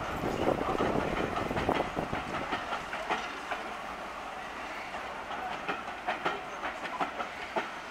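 A passenger train's coach wheels rolling slowly over rail joints and pointwork, with irregular sharp clicks over a steady rumble that fades a little as the train draws away.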